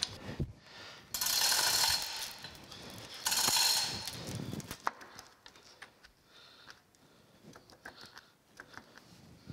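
Two short bursts of rapid metallic ratcheting, the first about a second in and the second about three seconds in, followed by scattered light metal clicks and taps as a bolt is fitted into a shaft's bearing.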